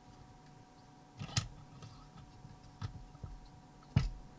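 A few light clicks and taps of metal on metal as machined stainless steel alignment pins and a cast-iron vacuum pump plate are handled and knock together: one about a second and a half in and a sharper one near the end.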